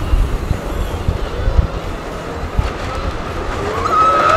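Train of the 1920 Scenic Railway wooden roller coaster running on its track: a low rumble with irregular knocks and clatter, and a rising whine coming in near the end.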